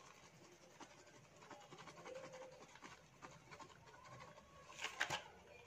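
Near silence with faint scratchy ticks as chaat masala is shaken from a spice box over a plate of chaat, then two sharper clicks about five seconds in.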